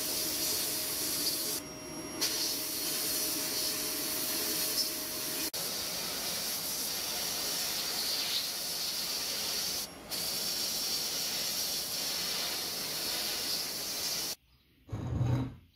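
Sandblasting gun in a blast cabinet hissing steadily as the air-and-grit stream strips rust from a steel crank handle, easing briefly twice, then cutting off suddenly near the end. A short low knock follows.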